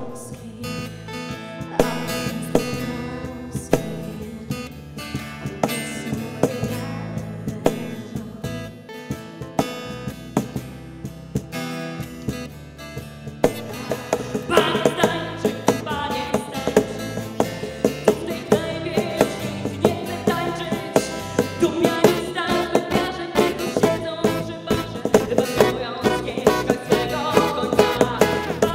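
Live band music: female vocals over acoustic guitar, bass guitar and drums. About halfway through it cuts to a different song with another female singer, and the singing becomes fuller.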